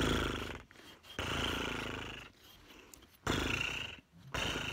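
A horse snorting: four breathy blows through the nostrils with a fluttering rattle, the second the longest.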